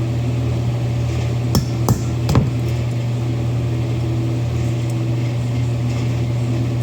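Three sharp taps on metal between about a second and a half and two and a half seconds in, as a small pin is knocked loose on a Mikuni slide carburetor. They sound over the steady low hum of a running house furnace.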